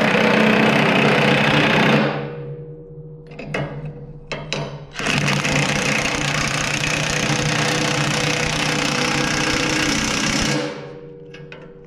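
Power impact wrench hammering bolts tight on the rototiller's frame. It runs in two bursts, a short one of about two seconds and then a longer one of about five and a half seconds, with a few clicks between.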